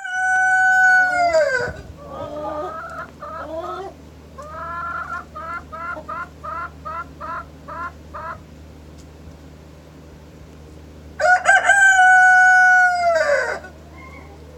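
Rooster crowing twice: a long held crow that drops off at the end, right at the start, and another about eleven seconds in. Between the crows comes a run of short repeated clucking calls, about two a second, that stops about eight seconds in, over a faint steady low hum.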